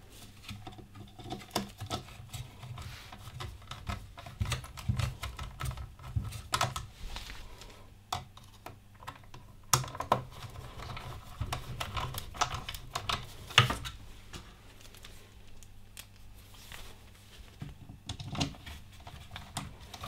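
Irregular light clicks, taps and rattles of hard plastic as the Dyson V11's cyclone and motor housing is handled and worked on by hand. A sharper knock comes about two-thirds of the way through.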